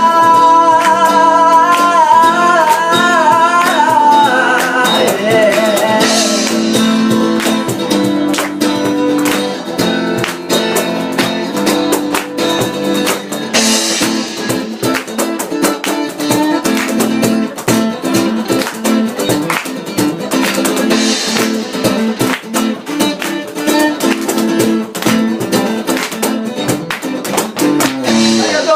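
Live guitar-led band music, the song's closing section: a held note with vibrato sung over the guitars for the first few seconds, then rhythmic strummed chords carrying on without vocals.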